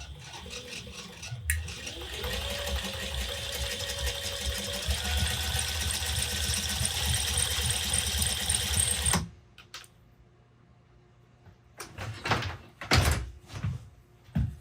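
Sewing machine running: the motor's pitch rises as it speeds up, it runs steadily stitching, then stops abruptly about nine seconds in. A few short knocks and handling sounds follow near the end.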